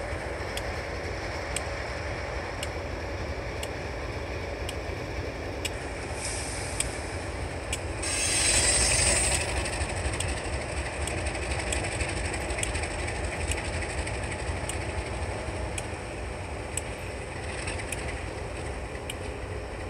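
Diesel switcher locomotive No. 1835 running and moving slowly through the yard: a steady low engine rumble with faint regular clicks. A loud hiss of air about eight seconds in lasts a second or two.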